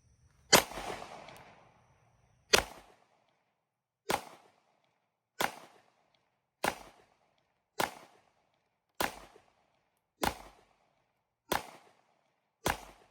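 G-Force RPX9 9mm pistol fired ten times in a slow, steady string, a shot every one to two seconds, each crack followed by a short echo; the first shot is the loudest and rings longest.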